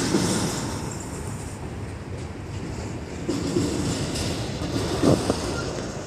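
Freight train of autorack and box cars rolling past: a steady rumble of steel wheels on the rails, with a sharp clank about five seconds in.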